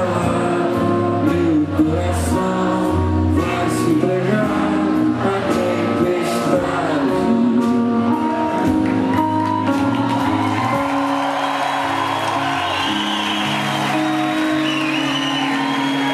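Live rock band playing on stage, with electric guitars, drums and keyboard. The drum hits stop about eight or nine seconds in, leaving held, wavering guitar and keyboard tones.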